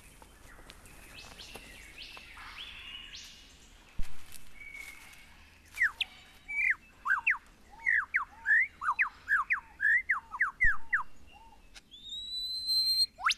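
Superb lyrebird singing, played from a wildlife film through a computer over a video call: a quick run of loud descending whistled notes, then a rising call near the end, with a sharp click about four seconds in.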